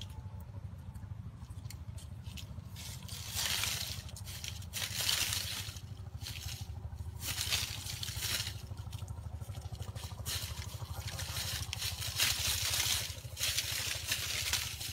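Dry leaf litter rustling in several short bursts as wild junglefowl scratch and peck at the forest floor, over a steady low rumble.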